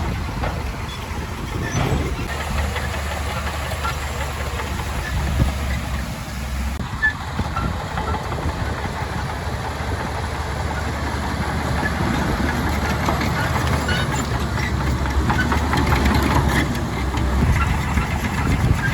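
Heavy diesel earthmoving machinery running at work: a steady low engine rumble that builds somewhat louder in the second half, with scattered metallic clanks and rattles.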